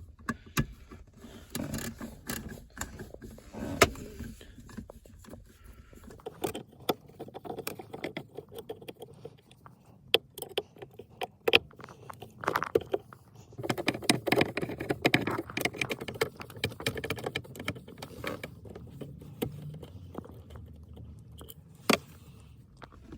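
Irregular clicks, clinks and scrapes of hand tools and metal hardware being handled, with a few sharper knocks, while the console bracket fasteners are worked loose with a T25 Torx bit.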